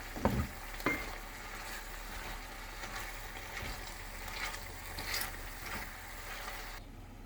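Chicken giblet sauce sizzling in a pan while it is stirred, with two knocks of the spoon against the pan in the first second. The sizzling cuts off suddenly near the end.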